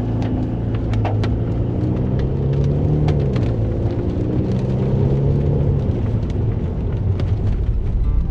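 Car engine and tyres while driving slowly: a steady low rumble, the engine note rising about three seconds in and easing off again, with scattered sharp clicks and ticks.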